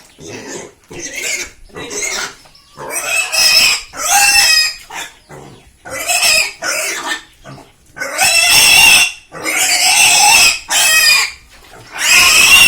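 Domestic pig squealing repeatedly in loud, high-pitched cries of up to about a second each, getting louder about three seconds in.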